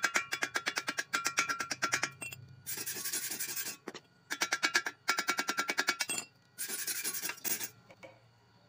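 A chipping hammer knocks slag off a fresh stick-weld bead on thin steel box tubing, with runs of fast ringing metallic taps at about eight a second. The taps alternate with two bursts of harsh scrubbing on the metal, about a second each, and everything stops about eight seconds in.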